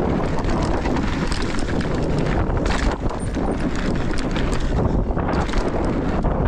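Mountain bike riding downhill on a dirt trail: wind buffeting the microphone, tyres rolling over dirt and, midway, a wooden boardwalk, and the bike rattling with frequent clicks and knocks.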